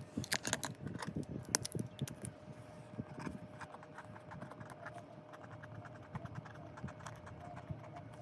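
Rapid, irregular clicking and tapping, densest in the first few seconds and then sparser, with a faint steady hum underneath.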